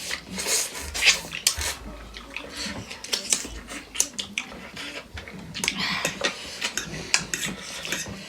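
Utensils clinking and scraping against plates during a meal, a run of sharp, irregular clicks, the loudest about a second in and again near seven seconds.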